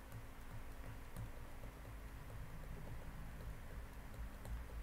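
Quiet room tone: a low steady hum with a few faint ticks.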